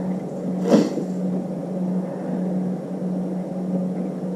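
A single sharp click of metal on metal about three-quarters of a second in, as the last screw on the underside of the keyboard case is worked with an Allen key, over a steady low hum.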